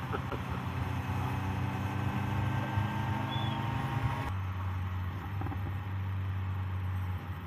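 Motorcycle engine running at a steady note under wind hiss. A little past halfway the hiss drops away and the engine settles onto a lower, steadier note.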